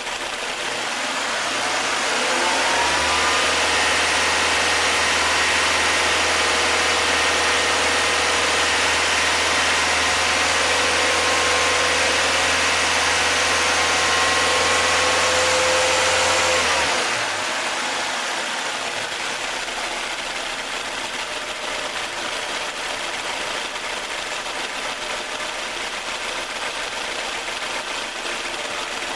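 Nissan four-cylinder engine rising from idle to a higher, steady speed about two seconds in, held there, then dropping back to idle about seventeen seconds in. The engine is held at raised revs so the water pump circulates the antifreeze faster and pushes trapped air bubbles out of the cooling system.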